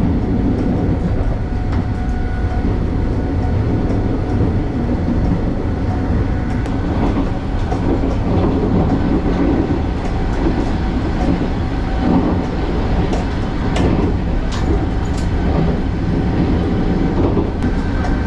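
Running noise of an EMU1200 Tze-Chiang electric multiple unit at speed, heard from inside the car: a steady low rumble with scattered faint clicks of the wheels over the rails and a faint steady whine.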